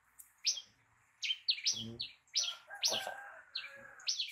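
A small bird chirping over and over: short, sharp, high chirps, about two or three a second.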